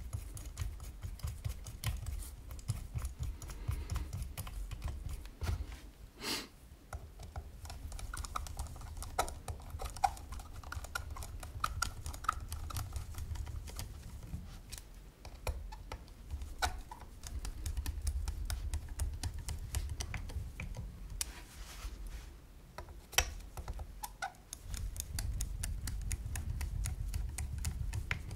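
Small screwdriver turning slotted screws into the brass cap of a mechanical box mod: a long run of small metal clicks and scrapes, a few sharper clicks among them, over a low handling rumble.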